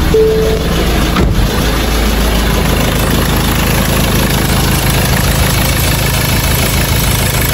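Ford Ranger 2.2 diesel engine idling steadily just after a cold start, being listened to for the belt squeal that a worn pulley bearing used to cause.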